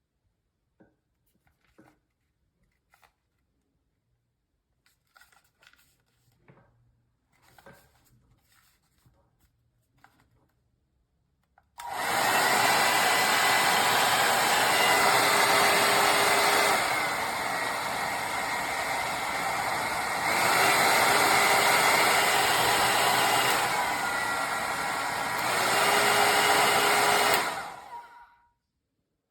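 Ionic hot air brush (hair dryer brush) blowing: its fan motor starts about twelve seconds in and runs with a steady whoosh and a faint whine. The speed steps down and back up twice, the whine gliding in pitch at each change. It shuts off near the end, after a few faint handling clicks earlier on.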